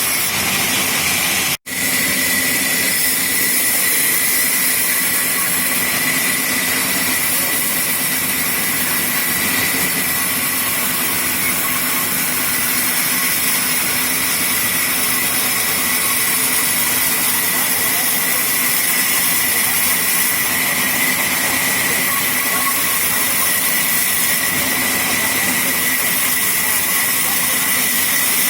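Sawmill machinery running steadily: an even hiss with a steady high whine, cut off for an instant about a second and a half in.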